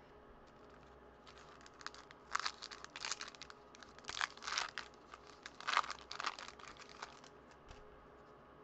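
Foil baseball-card pack wrapper being torn open and crinkled by hand: a run of crackling, rustling bursts starting about a second in and stopping near the end.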